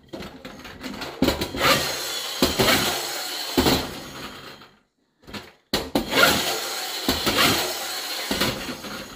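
Tin-plate Nomura (TN) Chevrolet Impala friction toy car pushed along a wooden tabletop, its friction flywheel and gears whirring. It runs twice, about three seconds each time, with a short silent gap between.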